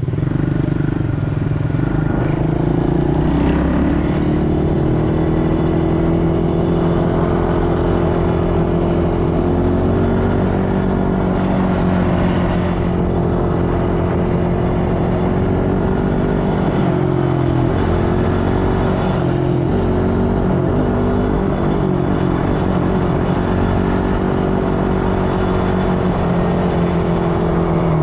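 ATV engine running under way at a fairly steady speed. Its pitch climbs a few seconds in, then dips and picks up again about two-thirds of the way through.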